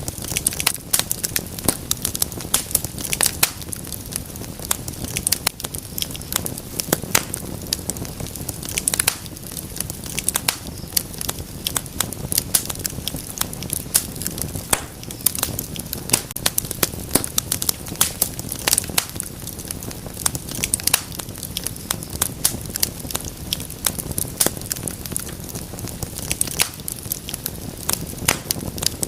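Wood fire burning in a fireplace: constant irregular snapping and popping of burning logs over a low, steady rumble of flames.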